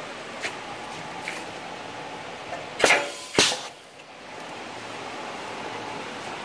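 Punch press striking twice, about half a second apart, as it punches a white dryer trim ring: two sharp bangs with a brief ring, over a steady machine hum. Two light clicks come first.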